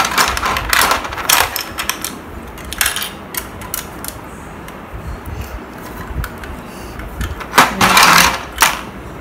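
Plastic LEGO bricks clicking and clattering as they are handled and pressed together, with scattered sharp clicks and a louder flurry of clatter near the end.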